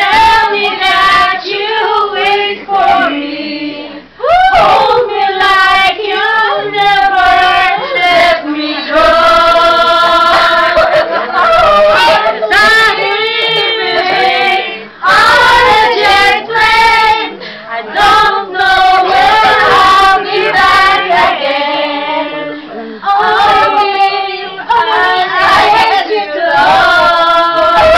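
A group of women singing a song together in chorus, loud, with short breaks between the sung lines.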